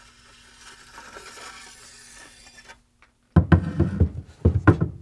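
A steel katana blade sliding out of its bamboo scabbard with a soft hiss, then the hollow bamboo scabbard knocking and clattering down onto a wooden workbench in two loud clusters of knocks, starting after about three seconds.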